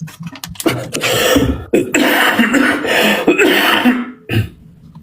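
A man coughing in a fit of loud, harsh coughs lasting about three seconds. It is a dry cough, without much wet phlegm left.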